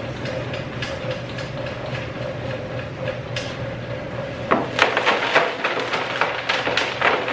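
Homemade worm-casting shaker running: a small electric motor hums steadily while its belt drive bounces a quarter-inch wire-screen basket, which rattles with fast light ticking. About four and a half seconds in, a scoop of castings lands on the shaking screen and the rattling turns loud and clattery.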